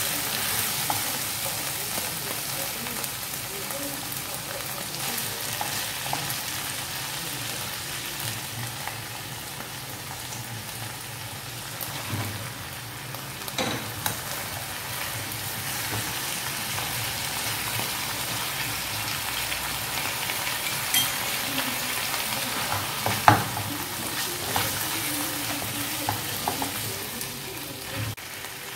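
Chicken pieces in spice paste sizzling in a frying pan while being stirred with a spatula: a steady frying hiss, broken by occasional knocks and scrapes of the spatula against the pan, the loudest knock about three quarters of the way through.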